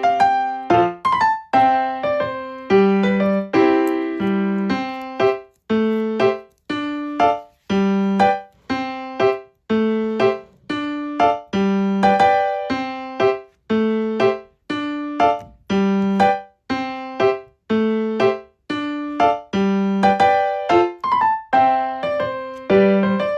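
Background music: a light piano or electric-piano tune of short, quickly fading notes in a steady, repeating rhythm.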